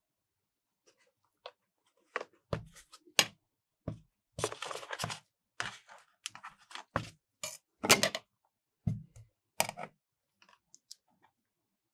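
Metal spatulas knocking and scraping on a cold steel ice-cream plate: irregular sharp clicks and taps, with a longer scrape about four seconds in and the loudest knock near the eight-second mark.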